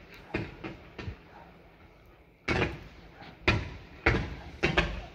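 Fireworks exploding: a few quieter bangs in the first second, a short lull, then five loud sharp bangs in quick succession from about halfway, each trailing off in an echo.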